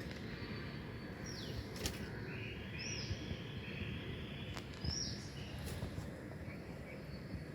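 Budgerigars chirping: about three short, high calls roughly two seconds apart, with a few softer lower calls between them. Underneath is a steady low rumble, and there are two sharp clicks.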